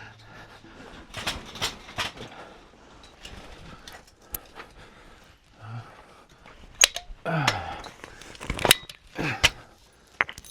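Oak timber being handled: scattered sharp knocks and clicks of wood, with rustling between them.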